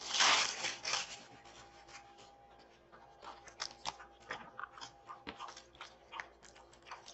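Tissue paper and bubble-wrap packaging rustling and crinkling as a parcel is opened by hand. A loud rustle comes first, then scattered light crackles and clicks.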